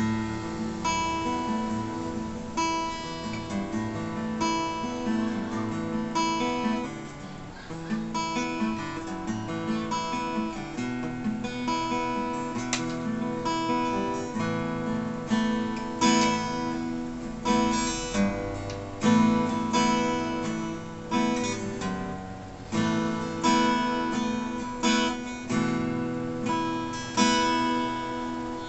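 Sqoe Cranberries 41-inch acoustic guitar strummed unplugged, with steady rhythmic chords ringing through. In the second half the strums grow more accented, a strong stroke about once a second.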